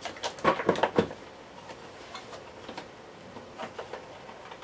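Hard plastic parts of a Miele S8 vacuum cleaner's casing clicking and knocking as they are handled and worked loose. There is a quick cluster of clicks in the first second, then only a few faint ones.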